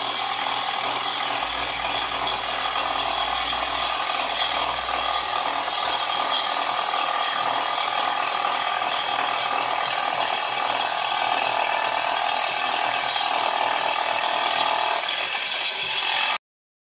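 Angle grinder fitted with a 100 mm carbide-tipped circular saw blade, running under load and cutting through thick aluminium plate: a loud, steady, high-pitched cutting noise with a ratcheting chatter. It cuts off abruptly just before the end.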